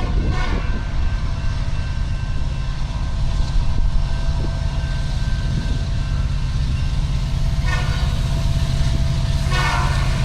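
Diesel freight locomotive running close by with a steady low rumble, and short horn blasts about eight and nine and a half seconds in.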